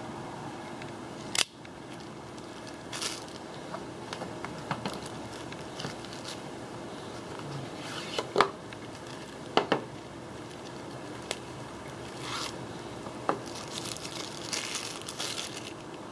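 Packaging being cut, torn and crinkled open by hand, with scattered sharp clicks and rustles, the loudest click about a second and a half in and a quick pair of clicks near the middle; a faint steady hum runs underneath.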